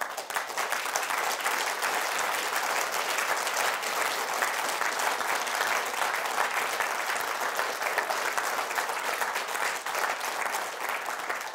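Audience applauding steadily, a dense patter of many hands clapping, dying away near the end.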